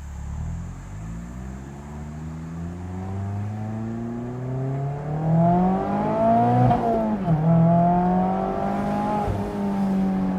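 Mazda MX-5 Miata's 2.0-litre four-cylinder through an aftermarket GoodWin Racing exhaust, revving up under acceleration for several seconds. About seven seconds in the pitch drops sharply at an upshift, then the engine pulls on, settling to a steady note near the end.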